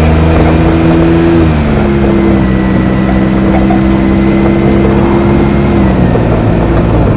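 Honda S660's small turbocharged three-cylinder engine running while the car drives over rough road, with irregular clattering from the engine hood catch: its U-shaped metal striker rattling in the latch over the bumps. The engine note shifts pitch about a second and a half in and drops near the end.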